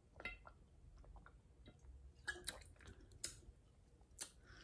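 Quiet close-miked mouth sounds of drinking from a bottle and swallowing, followed by a few short, sharp lip smacks and clicks.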